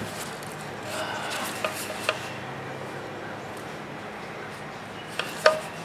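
A few light knocks and clicks from the cut-open sheet-steel muffler of a Honda EU2000i generator being turned over in gloved hands: two about two seconds in and two near the end, the last the loudest.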